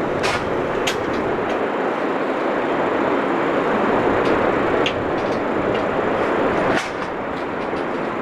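Aircraft engines at a flying display, a steady roar with a few short sharp clicks.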